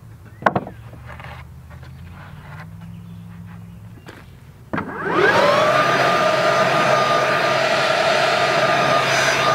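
A wooden board knocks down onto a stack of sawn lumber, then a motor spins up quickly and runs at a steady high whine, much louder than anything before it.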